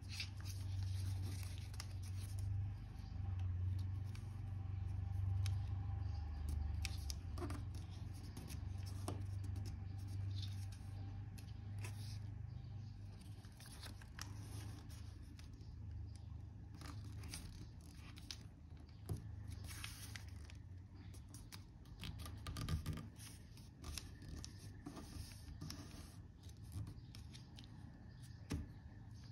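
A sheet of origami paper being folded and creased by hand: scattered soft crinkles, rustles and taps as the fingers press and slide along the folds. Under them runs a low steady hum, stronger in the first half.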